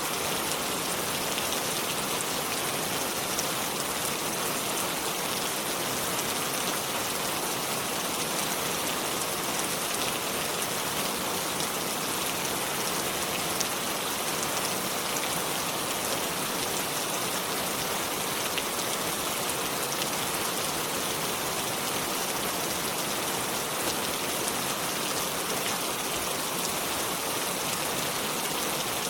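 Steady rain falling: an even hiss with scattered fine drop ticks, unchanging throughout.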